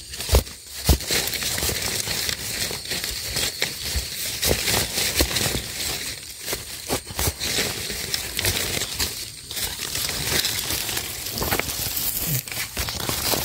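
A hand tool scraping and prying in forest soil and dry leaf litter to dig up termite mushrooms, with irregular crackles and scrapes of rustling leaves and earth.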